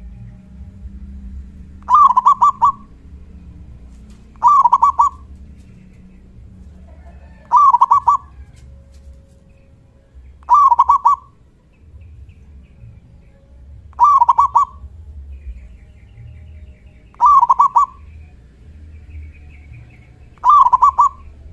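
Zebra dove (perkutut) singing its cooing song: seven short phrases, each a quick run of coos, repeated about every three seconds.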